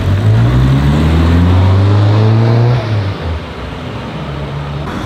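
Classic Škoda car's engine pulling away, its revs climbing steadily for about three seconds, then dropping off as the car goes by; another car's engine runs more quietly after that.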